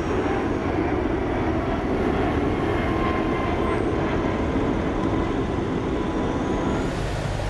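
Jet aircraft engines running, a steady, even rush of noise.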